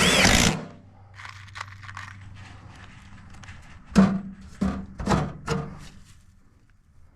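A brief whir of a drill driving a screw to fasten the aluminum downspout, followed about four seconds in by four sharp knocks on metal as the pipe and straps are fastened down.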